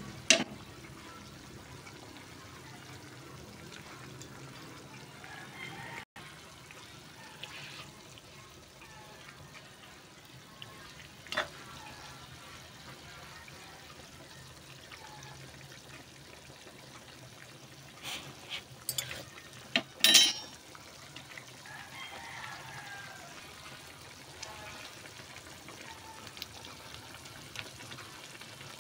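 Pot of cabbage soup simmering on the stove, a steady bubbling hiss. A few sharp clicks break in, the loudest cluster about twenty seconds in.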